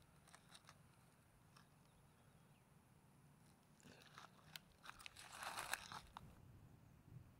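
Fingers digging and scraping in dry soil and leaf litter at an insect burrow, faint crisp crunching and crackling that grows into a denser burst about five seconds in.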